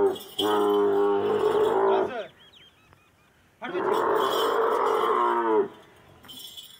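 Dromedary camel bellowing: two long, steady calls, each just under two seconds, with a pause of about a second and a half between them. Faint bird chirps come in the pause.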